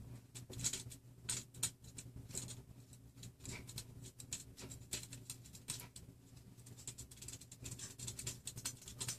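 Faint, irregular small clicks and scratches from a metal M4 bolt and washer being fitted by hand into a plastic printed extruder and X carriage.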